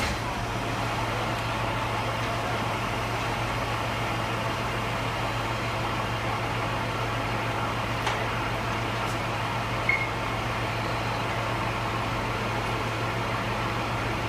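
Fire engine running at the scene: a steady low mechanical drone with a strong hum. A faint click comes about eight seconds in, and a short high chirp about ten seconds in.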